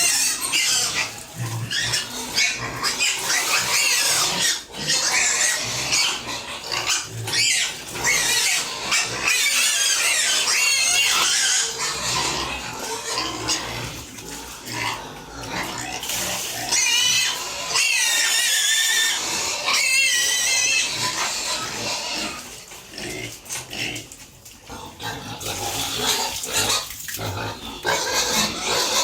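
Pigs calling continuously, with wavering high-pitched squeals about halfway through.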